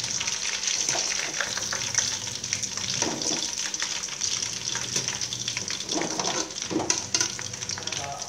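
Whole chicken frying in hot oil in a large aluminium pot, with a steady sizzle. Metal tongs turn the bird, clicking and scraping against the pot several times.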